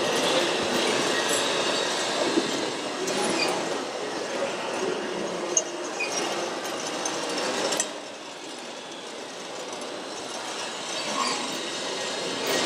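Radio-controlled model tipper truck driving slowly, its drive motor and gears whirring and clattering with a few sharp ticks. The sound drops somewhat about eight seconds in.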